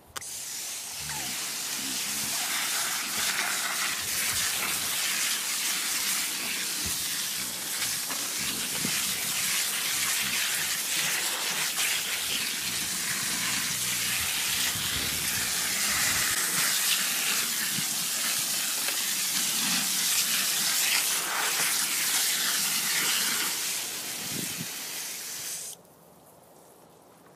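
Garden hose spraying water onto a wheelbarrow load of biochar, damping it down: a steady rushing hiss that cuts off suddenly near the end.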